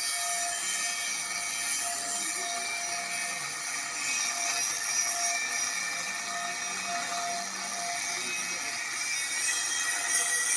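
Grinder cutting steadily through a thick workpiece: a continuous high-pitched whine with a grinding hiss.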